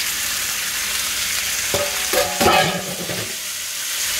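Chicken wings sizzling steadily in hot oil in a wok with minced garlic and ginger, as they are pushed in from a metal plate and stirred with chopsticks. About two seconds in there is a brief, louder ringing scrape of metal and chopsticks.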